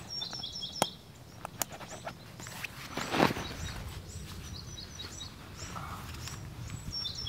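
Small birds chirping: many short, high, falling notes, with a quick descending run of four notes near the start and again at the end. A few sharp clicks and a louder crunch about three seconds in.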